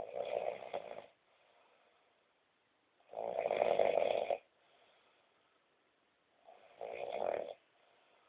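A person snoring loudly: three long snores about three seconds apart, each around a second long, with quieter breaths between them.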